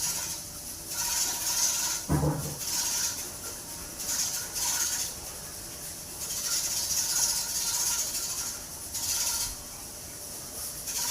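Panasonic top-load washing machine running on its spin setting: a hiss of water and drum that swells and fades in waves every second or two, over a faint steady whine. There is one short low thump about two seconds in.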